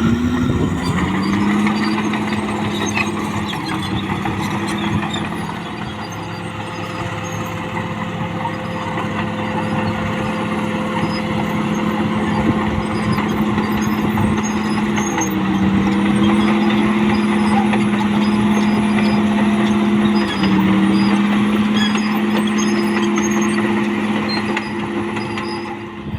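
CAT D6R XL bulldozer's diesel engine running steadily under working load, with continuous clatter. The engine note drops and recovers several times, most clearly about fifteen and twenty seconds in.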